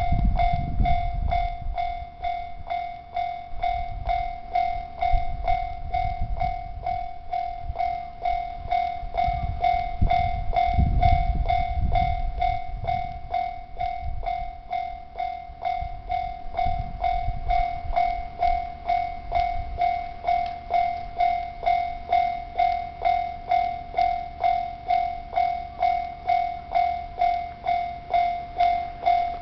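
Japanese railway level crossing warning bell ringing, one steady pitched tone struck evenly a little over twice a second. For roughly the first half a train rumbles over the crossing beneath it. The rumble then dies away and the bell keeps ringing alone.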